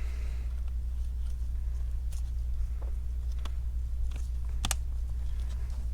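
Faint scattered clicks and light taps of laptop parts and the screen cable being handled and fitted during reassembly, over a steady low hum.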